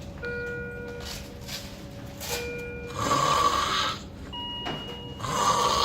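A person snoring heavily, with two loud rasping snores, one about three seconds in and one near the end: snoring of the kind that can be a sign of sleep apnea. Steady electronic tones, held about a second each, sound several times in between.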